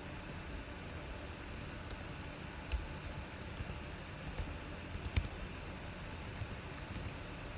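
A few scattered keystrokes and clicks on a computer keyboard, sharp and sparse, over a steady low hiss.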